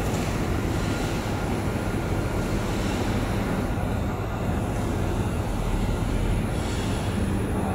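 A 12 kW laser tube cutting machine running: a steady, unbroken machine noise with no pauses.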